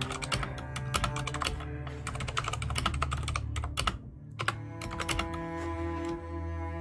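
Typing on a computer keyboard: a quick run of key clicks for about four seconds, then a short pause and a few more keystrokes, with background music underneath.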